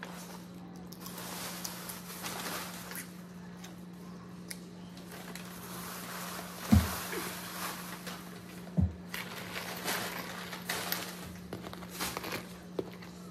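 Someone eating boiled crawfish with their fingers: scattered shell cracks and mouth-sucking noises over a steady low electrical hum. Two dull thumps, about seven and nine seconds in, are the loudest sounds, and a metal spoon clinks in the pot near the end.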